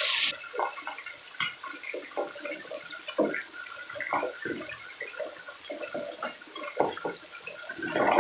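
Pork belly frying in hot oil in a pan, its fat crackling and popping irregularly as it renders and browns. A loud steady hiss cuts off just after the start.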